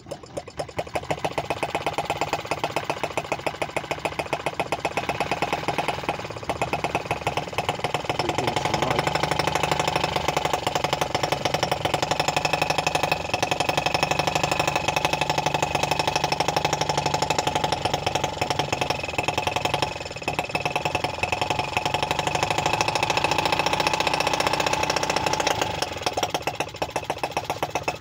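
Stirlingkit M12b 2.6cc water-cooled four-stroke model gas engine running with a fast, even firing beat while it drives a small generator. It gets louder about nine seconds in, dips briefly twice, and eases back near the end.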